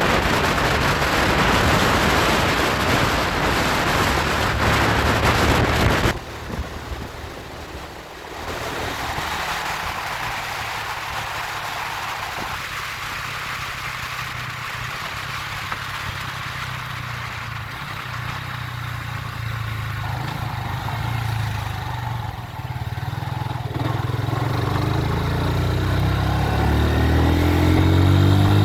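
Vehicle on the move: loud wind and road noise for about six seconds, then a sudden drop to a quieter, steady engine hum. Near the end the engine revs up, rising in pitch.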